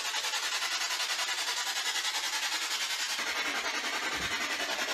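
Spirit box sweeping through radio stations: a steady hiss of static chopped into rapid, even pulses, about eight a second.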